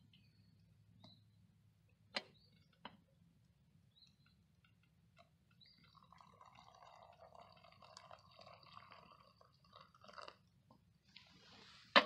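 Coffee poured from a blue enamelware coffee pot into a paper cup of instant oatmeal: two light clinks, then a soft trickle of liquid lasting about four seconds in the second half.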